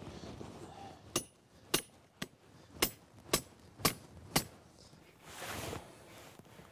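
A green-handled hammer striking while a steel wolf leg-hold trap is set into the ground: seven sharp knocks about two a second, each with a brief metallic ring. A short rustle follows near the end.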